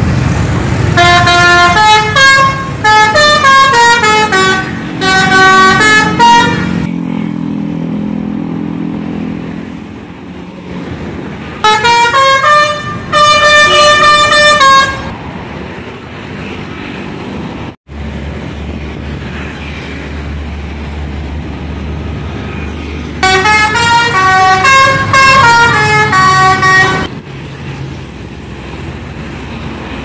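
Bus telolet horn: a multi-tone air horn playing short tunes of several notes at once, in three loud bouts of a few seconds each, about a second in, near the middle and again later on. Between the bouts a bus engine runs low under passing traffic.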